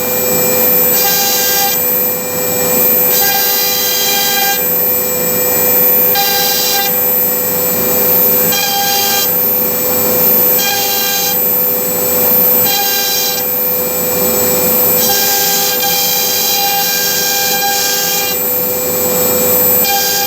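CNC router cutting MDF melamine board. The spindle holds a steady whine, while a higher pitched cutting tone comes and goes in stretches of about a second as the bit moves through the board.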